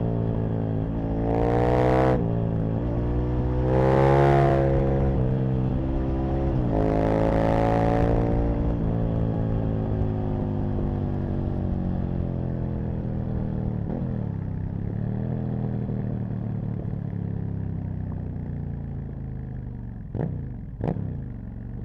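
Aprilia RSV Mille's V-twin engine pulling hard through the gears, its pitch climbing three times with a shift between each, then running down slowly as the bike slows. Near the end, two quick throttle blips.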